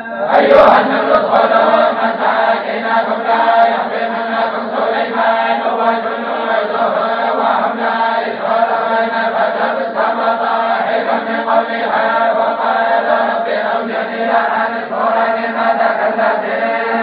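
A group of voices chanting together without pause, a steady chant over a held low tone, in the style of Moroccan tolba group recitation. A new phrase starts right at the beginning.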